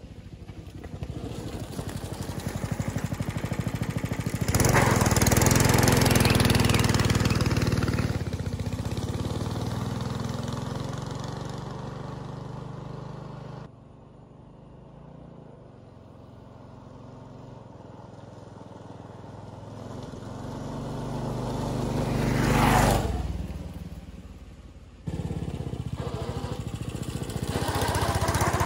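Flathead Briggs & Stratton single-cylinder engine on a homemade belt-drive motorized bicycle, running while the bike is ridden nearby. It swells and fades several times, drops off suddenly about halfway through, peaks again later, and comes back strongly near the end as the bike draws close.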